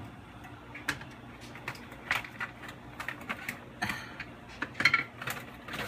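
Kitchen clatter: scattered light clicks and taps at an irregular pace, with a couple of brief metallic clinks about five seconds in.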